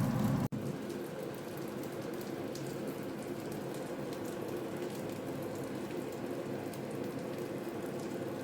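A steady crackling hiss that starts after an abrupt cut about half a second in.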